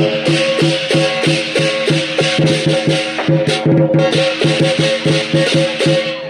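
Music with a quick, steady beat of shaker-like percussion over held pitched notes, cutting off abruptly at the end.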